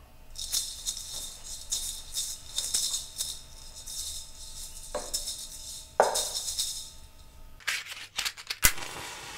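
Pair of maracas shaken in a steady rhythm, about three shakes a second, stopping about five seconds in. A short vocal cry follows about a second later, and a quick run of clicks comes near the end.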